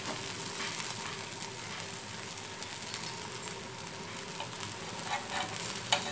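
Wheat adai dosa sizzling steadily in oil on a hot dosa tawa. A spatula makes a few faint ticks at the start, about three seconds in and near the end.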